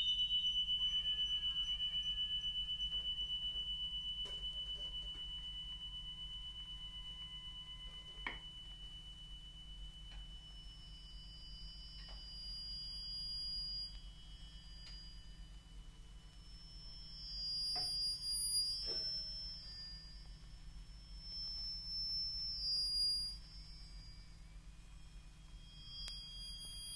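Free-improvised percussion: a struck metal percussion instrument rings one high tone that slowly dies away. A few faint taps sound here and there, and thin high whistling tones come and go in the second half.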